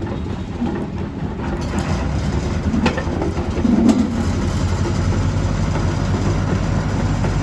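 A large tour boat's engine running steadily with a low hum that grows a little stronger about halfway through. A couple of sharp knocks come near the middle.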